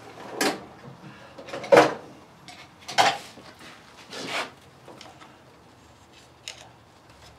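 Things being handled on a workbench: about five separate knocks and clatters, one of them a short scrape a little past the middle.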